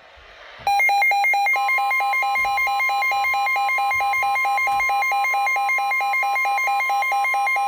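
Weather radio alert: fast electronic beeping at about four to five beeps a second, joined about a second and a half in by the steady single-pitch NOAA Weather Radio warning alarm tone, which signals that a warning follows. Faint radio hiss lies underneath.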